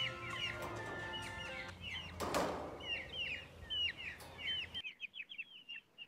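Poultry chicks peeping in short, repeated, downward-sliding calls. Faint held tones like music sound in the first two seconds, and a brief harsh burst comes about two seconds in.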